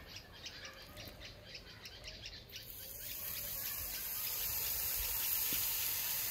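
Birds chirping faintly at first, then, from about two and a half seconds in, a steady hiss that grows louder: tomahawk steaks sizzling as they are laid on the hot kamado grill grate.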